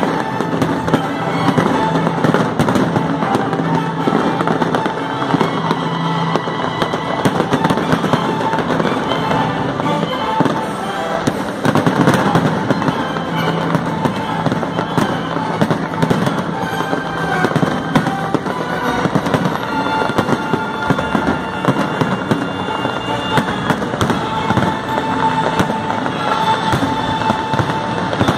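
A dense, continuous barrage of aerial firework shells bursting and crackling in quick succession, with music playing underneath.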